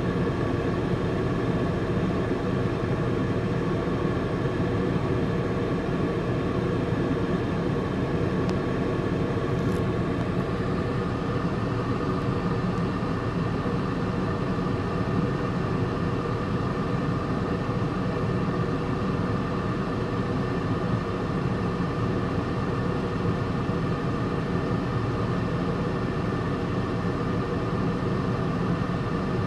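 Steady mechanical drone with several held whining tones that never changes in level, heard from inside a car.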